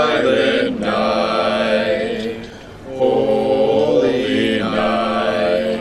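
A small group of voices singing a Christmas carol together in long held notes, with a short break about two and a half seconds in.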